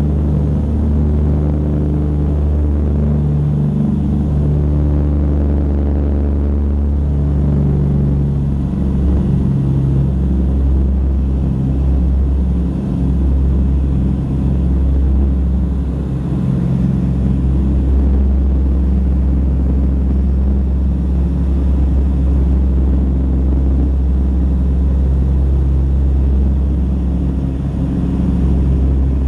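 A DC-3's two radial piston engines running at take-off and climb power, heard from inside the cabin: a loud, steady low drone.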